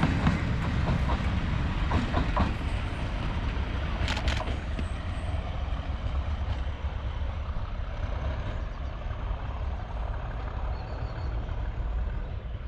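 Colas Rail Freight Class 37 diesel locomotive, with its English Electric V12 engine, on the rear of a test train, running away into the distance: a steady low rumble of engine and wheels slowly fading, with a few sharp clicks of wheels over the rail in the first seconds.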